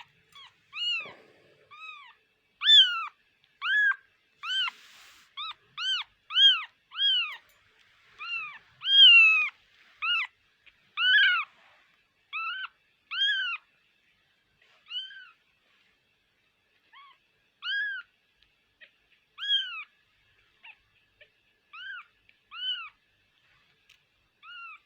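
Newborn kitten, still blind, mewing over and over: short high cries that rise and fall in pitch, coming about one to two a second for the first half and more spaced out later. The cries are those of a lost kitten looking for its mother.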